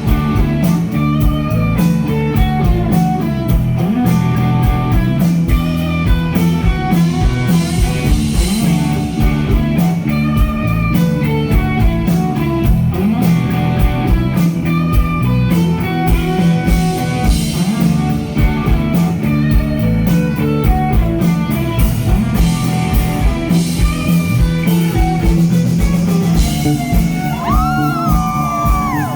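Live rock band playing: guitars over a drum kit with a steady beat. Near the end a high note slides up and is held.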